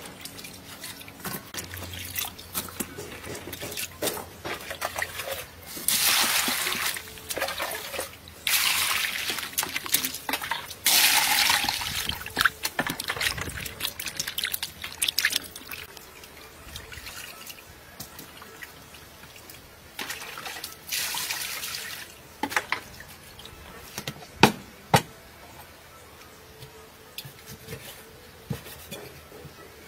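Food being washed by hand in a bowl of water: sloshing and splashing, with several louder bursts of water lasting a second or two each. A few sharp knocks come near the end.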